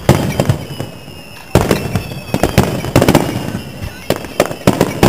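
Fireworks display: aerial shells bursting in quick runs of sharp bangs, a new cluster every second and a half or so.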